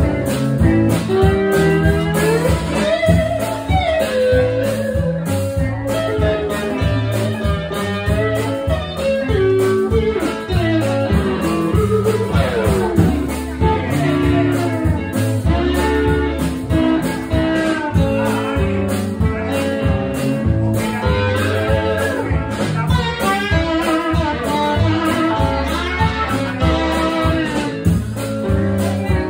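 Live band playing a guitar-led blues passage: electric guitar lines with bent, gliding notes over bass and a steady beat.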